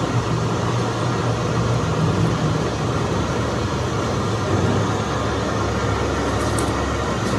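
A motor or engine running steadily with a low hum.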